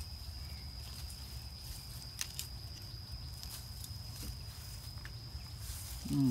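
Faint, irregular rustles and small clicks of a puppy pushing through low weeds and plastic plant pots, over a steady high-pitched insect drone and a low rumble.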